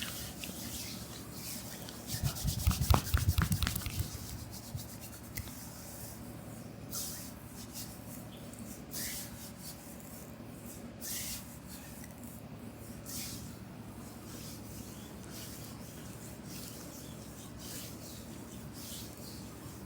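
Hands rubbing and working the skin during a back and shoulder massage. A flurry of quick thumps and slaps about two seconds in, then separate swishing strokes of palms over skin every couple of seconds.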